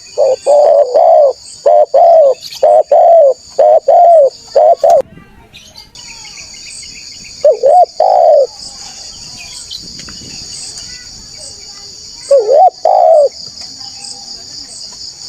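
Spotted dove cooing: a rapid run of coos in the first five seconds, then two short coo phrases later on. A steady high insect drone runs underneath from about six seconds in.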